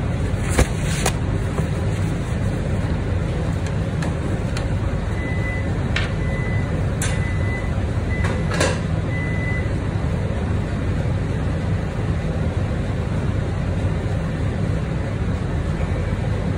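Steady low mechanical hum of commercial kitchen machinery. A few sharp clicks and knocks sound over it, and from about five seconds in a run of short, high, repeated beeps goes on for several seconds.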